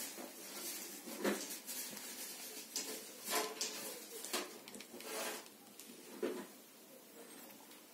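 Soft, irregular rustling and brushing of a fleecy blanket and fur as a cat shifts and settles on it and a hand touches it, with a few short, sharper scuffs.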